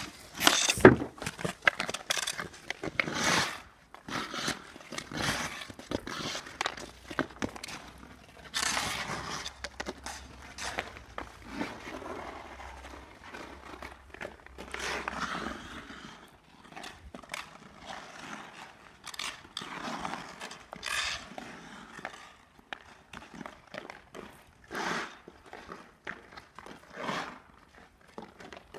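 Hockey skate blades carving and scraping across ice in repeated irregular strokes, with occasional clicks of a stick handling a puck. The loudest scrapes come about a second in and again near three seconds.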